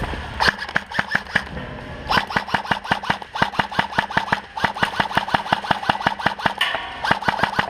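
Airsoft guns firing rapid strings of shots, each shot a sharp clack: a short string about half a second in, then near-continuous fire from about two seconds in, several shots a second.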